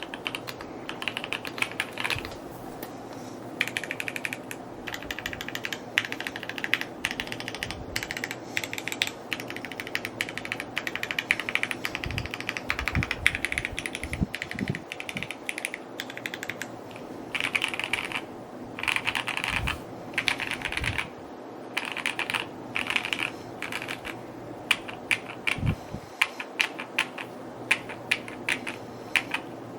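Typing on a Mode Encore 2 mechanical keyboard: quick runs of key clicks with short pauses between words and phrases, and a few deeper knocks mixed in.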